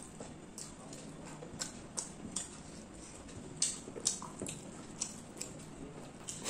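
Close-up eating sounds of a person chewing rice and chicken curry eaten by hand: short wet clicks and smacks at an irregular pace.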